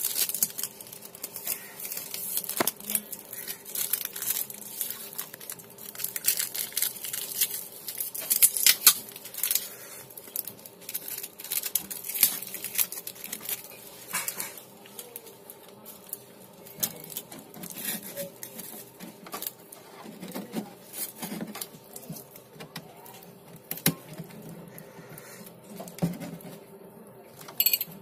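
Hands handling a taped bundle of refrigerator wiring: irregular rustling, crinkling and small clicks, busiest in the first half, over a faint steady hum.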